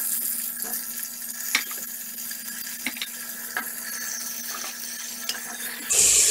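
Pork rib pieces sizzling in hot oil with fried onion and garlic in an aluminium pressure cooker, with a few light knocks as the pieces go into the pan. Near the end the sizzling suddenly gets much louder.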